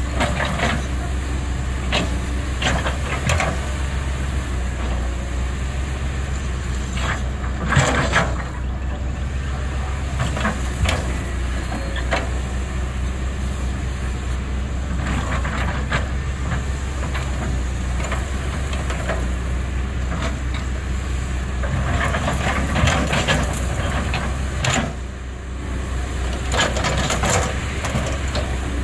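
Caterpillar 320 excavator's diesel engine running steadily while it digs, with scattered clanks from the bucket and boom, the loudest about eight seconds in.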